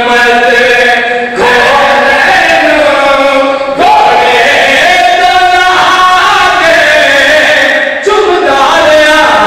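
A man's loud, melodic chanted recitation into a microphone, a majlis zakir's sung delivery: long drawn-out phrases with held notes and short breaks between them.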